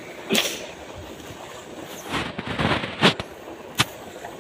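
Water splashing a few times in short, sudden bursts as a man moves about waist-deep in a muddy pond, over a steady background rush.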